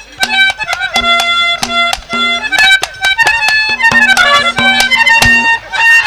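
Instrumental interlude from a Haryanvi ragni accompaniment band: a sustained melody instrument over frequent, sharp percussion strikes.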